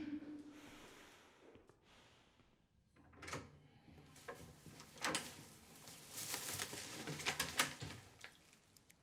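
Knocks, clicks and rustling from something being handled, like a door or drawer being moved, clustered between about three and eight seconds in.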